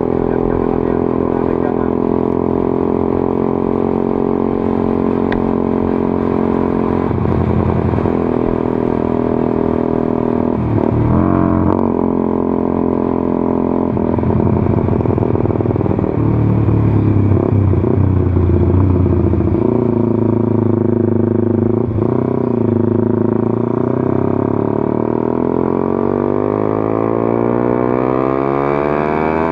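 Honda CBR150R's single-cylinder four-stroke engine running through an aftermarket Daytona X Proliner short exhaust under way. It holds a fairly steady note while cruising, then rises steadily in pitch as the bike accelerates over the last few seconds.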